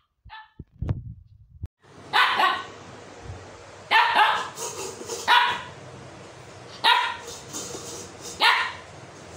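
Husky puppies playing tug-of-war with a cloth; one puppy gives about six sharp play barks spaced a second or so apart, starting about two seconds in.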